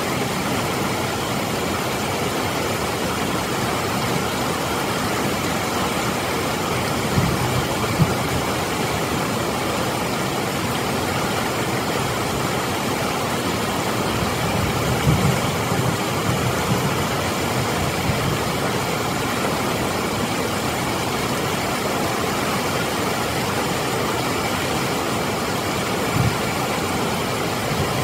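Steady rush of water pouring over a concrete weir and churning through the rapids below it, with a few short low bumps.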